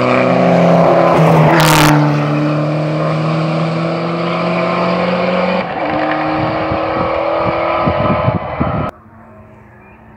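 Rally car engine at high revs, changing gear several times, with sharp exhaust pops and crackles as it comes off the throttle. The sound cuts off abruptly near the end, leaving a faint background.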